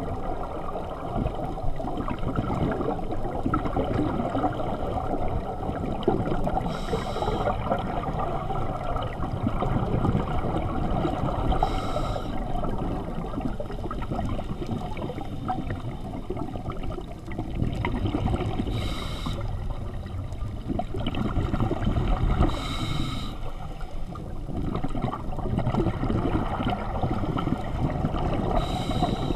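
Scuba breathing through a regulator, heard underwater through a camera housing: a steady muffled rumble and gurgle of exhaled bubbles, with five short hisses of inhalation spaced several seconds apart.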